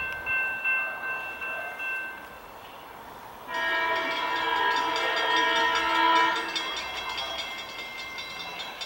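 SEPTA Silverliner IV electric train's multi-chime air horn sounding one long blast of about four seconds. It starts suddenly about three and a half seconds in and is blown as the train approaches a grade crossing.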